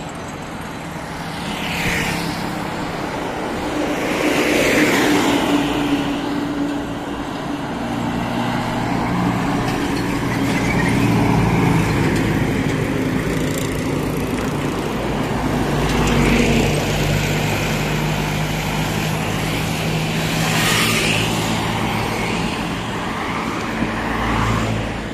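Highway traffic: cars and trucks driving past one after another. Each pass swells and fades over a steady low engine drone.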